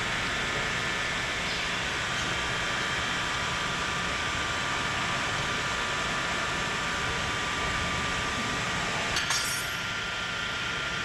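Steady background hiss and hum, with a brief metallic clink and ringing about nine seconds in, like a tool or metal part knocking against metal.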